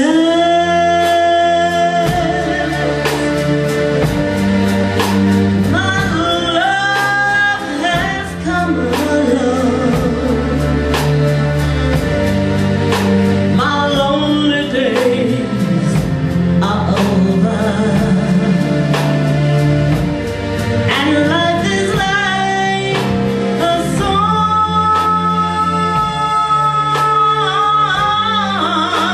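Live band playing a slow soul ballad: a woman sings long held notes with vibrato and sliding runs over keyboards, electric guitar, bass guitar and drums, with steady cymbal strokes.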